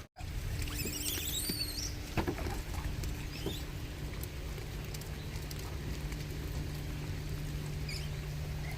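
Rain pattering steadily, with a few short high squeals about a second in.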